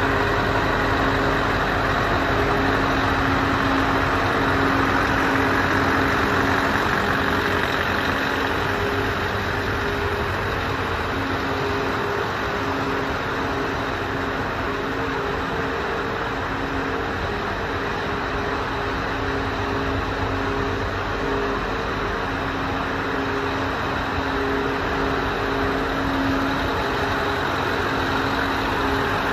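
Scania R620's turbocharged V8 diesel engine idling steadily.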